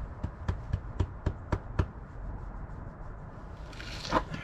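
A quick, even run of about seven light clicks or taps, roughly four a second, lasting about two seconds.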